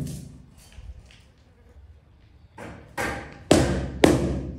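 Rubber mallet striking a large ceramic floor tile: a run of dull, sharp-edged thuds starting a little past halfway, about four blows in a second and a half. The blows tap the tile down level into its mortar bed.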